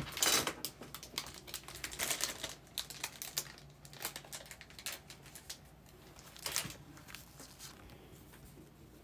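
Trading cards being handled and flicked through by hand: soft slides, rustles and small clicks of card stock, with sharper crinkly bursts near the start, about two seconds in and about six and a half seconds in.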